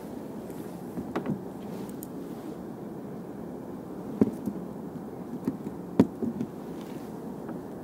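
Steady rush of wind on the microphone, with a few short sharp knocks, the loudest about six seconds in.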